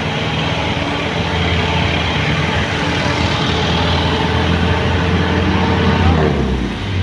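Jeepney engine running steadily, a little louder through the middle, then its pitch falls away about six seconds in as the revs drop, during a smoke-emission check.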